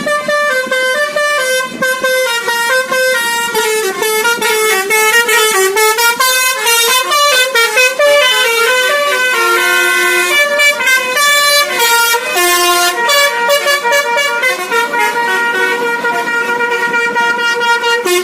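Basuri musical bus air horn (the Indonesian 'telolet' horn) playing a tune: a fast run of short, stepped horn notes without a break, at times two notes sounding together.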